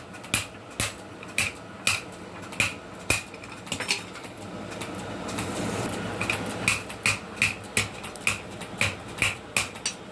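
Blacksmith's hammer striking steel on an anvil, about two blows a second, each with a short metallic ring. The blows stop for a couple of seconds midway, then resume at a quicker pace.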